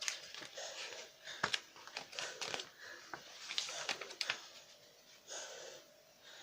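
Irregular rustling with sharp light clicks and knocks from books being handled, mixed with audible breathing close to the microphone.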